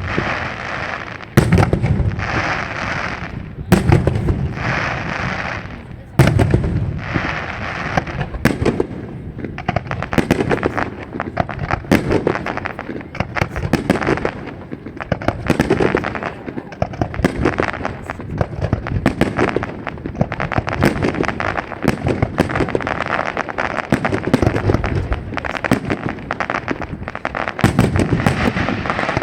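Fireworks display: four heavy shell bursts about two and a half seconds apart, each followed by a crackling tail. After about ten seconds they give way to a dense, continuous barrage of rapid reports.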